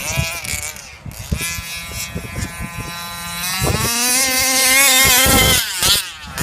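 Modified Revolver 32cc two-stroke engine of a 1/5-scale HPI Baja RC car running. Its pitch falls in the first second and holds steady, then climbs a little past halfway to a loud high rev for about two seconds before dropping off near the end.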